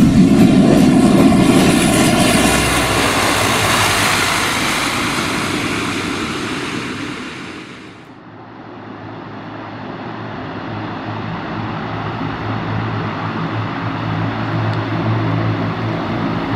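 ATR 42 twin turboprop engines and propellers running loud at close range with a high whine, fading away over several seconds. After an abrupt change about halfway through, a steadier low propeller drone from the taxiing aircraft slowly grows louder.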